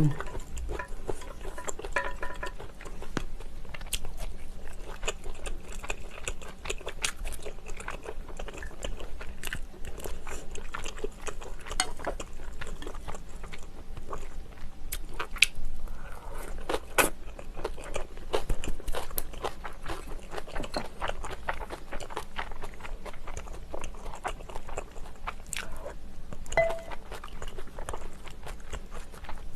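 Close-miked eating: a person biting and chewing food, with frequent crisp crunches and small clicks throughout.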